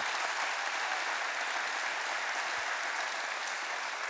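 Audience applauding steadily, a dense wash of clapping.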